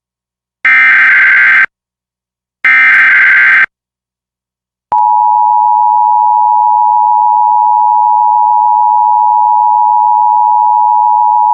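Emergency Alert System header: the second and third of three one-second bursts of shrill digital data tones, about a second apart, encoding a Required Monthly Test. About five seconds in, the steady two-tone EAS attention signal begins and holds.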